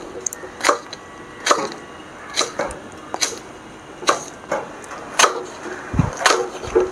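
Knife slicing okra into small rounds on a cutting board: separate sharp cuts, about one a second, each a crisp tap of the blade through the pod onto the board.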